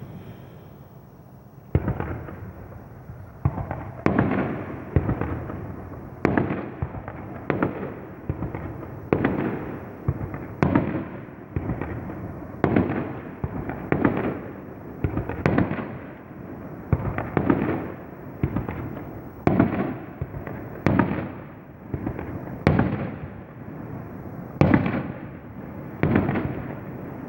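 Fireworks going off in a long run of bangs, a little under one a second, each with a fading rumble after it. The bangs begin about two seconds in, after a short lull of rumbling.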